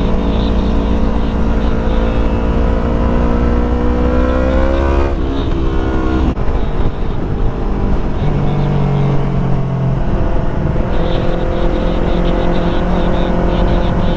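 Yamaha R3 motorcycle's parallel-twin engine under way at highway speed: revs climb slowly for about five seconds, break off for a gear change, then settle into steady running at a lower pitch.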